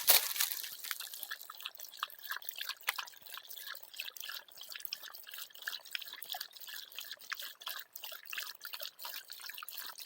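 A thirsty dog lapping water with its tongue: quick, irregular wet laps and drips, several a second.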